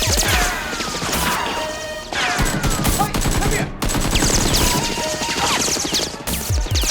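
Rapid bursts of gunfire sound effects, with falling whistling tones among the shots.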